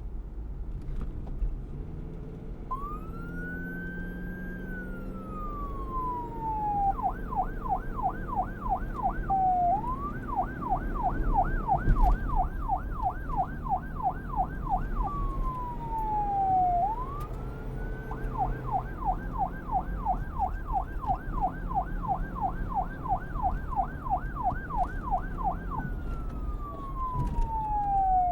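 Police car siren over a steady low rumble. A couple of seconds in it starts with a slow rising and falling wail, then switches to a fast yelp of about three sweeps a second. It goes back to the wail, yelps again, and ends on a falling wail.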